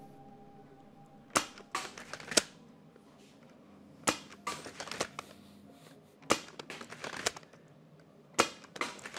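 Lever-action foam dart blaster being cycled and fired repeatedly: about four quick groups of sharp clacks and pops, one group every two seconds or so, as the lever is worked and the trigger pulled.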